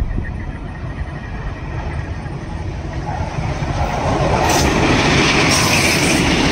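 KTM Class 24 diesel locomotive running, its low rumble growing louder as it approaches. From about four seconds in it passes close with its coaches, and the wheels clatter on the rails.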